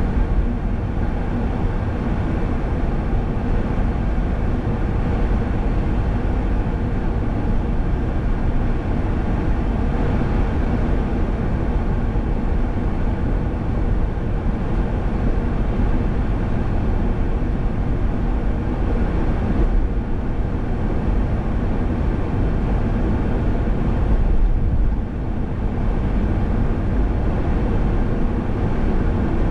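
Steady road noise of a car driving at speed: tyre and engine noise with a strong low rumble, briefly dipping once near the end.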